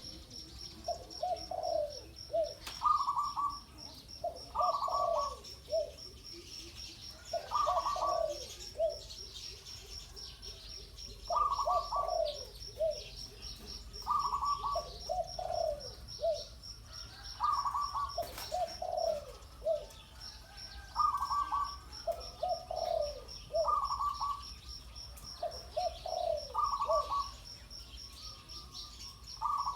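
Spotted dove cooing: the same short three-part phrase repeated about ten times, a phrase every two to four seconds. A steady high insect trill runs underneath.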